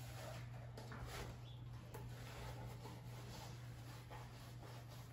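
Faint scrubbing of a sponge on dishes at a sink, with a few light knocks, over a steady low hum.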